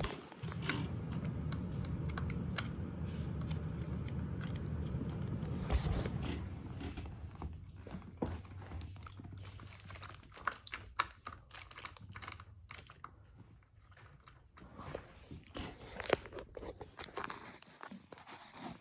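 A cordless DeWalt power tool's electric motor running steadily for about six seconds, then winding down over a couple of seconds, followed by scattered light clicks and knocks of handling.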